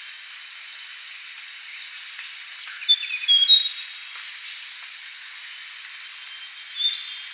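Yellow-bellied warbler singing: a short phrase of high, clear whistled notes about three seconds in, and another starting near the end, over a steady background hiss.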